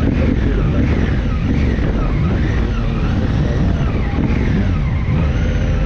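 Motorcycle engine running under the rider while riding in traffic, its pitch rising and falling with the throttle, mixed with wind noise on a helmet-mounted microphone.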